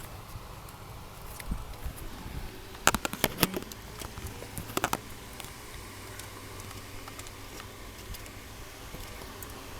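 Light clicks and rattles of plastic parts being handled in a steering column as the turn signal lever's wire tube is worked into place. There is a cluster of sharp clicks about three seconds in and a few more about two seconds later.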